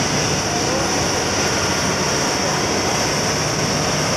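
Earthsaver P13's Caterpillar 3412 V12 diesel engine running steadily at high speed, with a constant high whine above the engine note.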